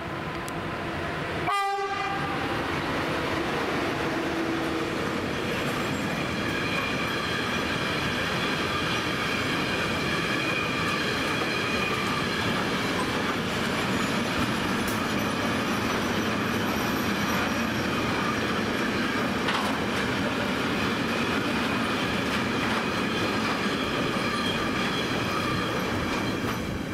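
Container freight train behind an ÖBB class 1116 Taurus electric locomotive rolling steadily past, wheels running over the rails, with a steady high-pitched squealing from the wagons' wheels.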